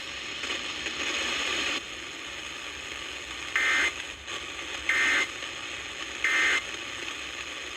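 Emergency Alert System end-of-message data bursts played over a radio: three short, harsh digital bursts about a second and a half apart, the first about three and a half seconds in, over steady radio hiss. They signal the end of a National Weather Service warning.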